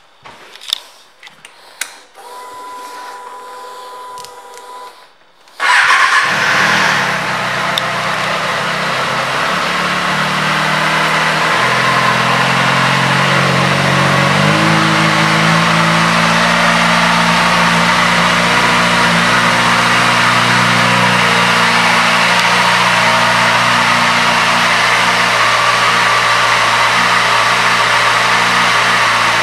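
2008 Kawasaki ZX-6R's inline-four engine starts suddenly about six seconds in, after a few seconds of a faint steady whine. Its pitch shifts a few times over the next several seconds, then it settles into a steady idle.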